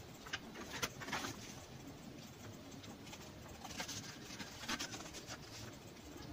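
Handling noise from paper and a cardboard box: short rustles and clicks as the folded paper manual is moved and set down. A second cluster comes about four to five seconds in, as the hand reaches into the box's plastic tray.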